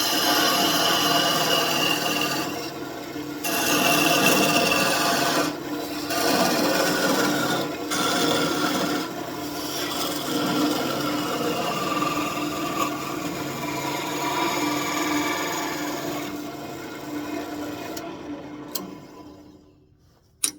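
Small parting tool cutting into spinning birch on a wood lathe, a steady scraping cut with a few short breaks, parting the piece off. The cutting fades away near the end.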